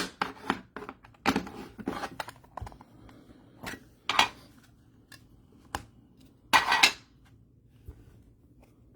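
Trading cards and plastic card holders being handled on a table: scattered taps and clicks, with a longer scrape about six and a half seconds in.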